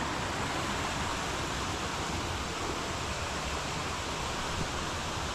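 Steady rush of a flowing stream, an even hiss of running water with no breaks.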